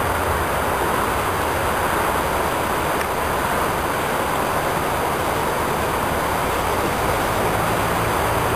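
Steady rushing noise of a shallow, fast-flowing river over rocks, mixed with the drone of road traffic, which is stronger at the start and again near the end.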